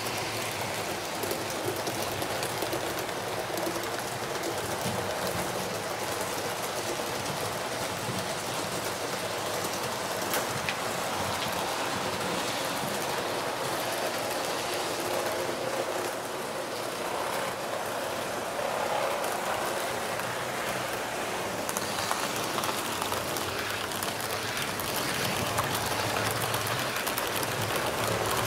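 Model train running on the layout: a steady rushing rattle of small wheels rolling over the track.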